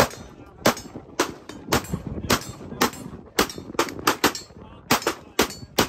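Pistol fired rapidly, about a dozen sharp shots at roughly two a second, some in quick pairs.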